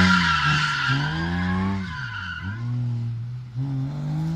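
Car drifting with its tyres squealing. The engine revs rise and fall several times as the throttle is worked through the slide. The tyre squeal fades out after about two seconds, leaving the engine.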